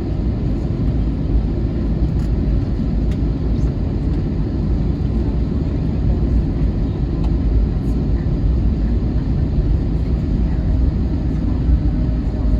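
Cabin noise inside an Airbus A321neo: a steady low rumble of the jet's engines and airframe.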